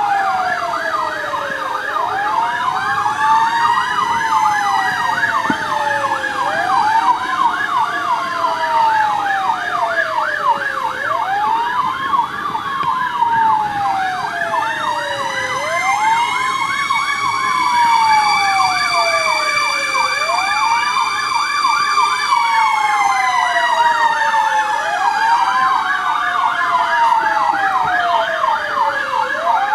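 Several fire truck sirens sounding together. One wails up and down about every four and a half seconds, another yelps rapidly, and a third rises and falls more slowly over several seconds.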